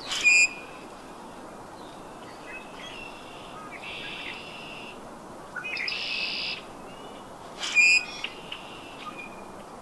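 Wild birds singing and calling: several short high trills, the loudest about six seconds in, and two brief sharp calls, one at the start and one about eight seconds in.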